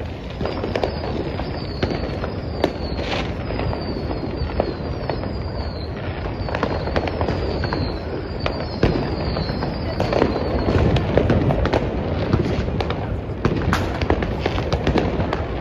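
New Year's Eve fireworks and firecrackers going off in a dense, unbroken crackle of pops and bangs. Through the first half a run of short high whistles, each falling in pitch, sounds one after another.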